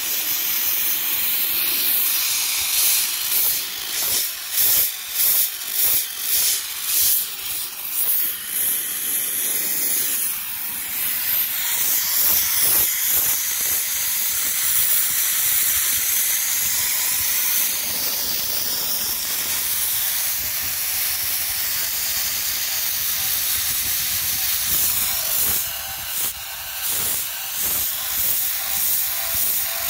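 Handheld sandblasting gun blasting abrasive onto a steel truck fender to strip out pinpoint rust: a loud, high hiss. It comes in short trigger bursts roughly once a second for the first ten seconds or so, then is held steady, then goes back to short bursts near the end.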